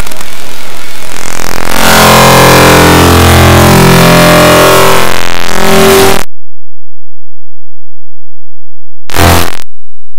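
Heavily distorted, clipped electronic audio from a layered video-effects edit. Harsh noise gives way to warbling, pitch-shifted voice-like tones. These cut off suddenly about six seconds in, with one short burst of the same sound about nine seconds in.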